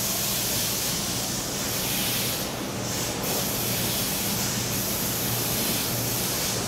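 Nankai 8300-series electric train standing at a platform: a steady hiss with a low, even hum underneath.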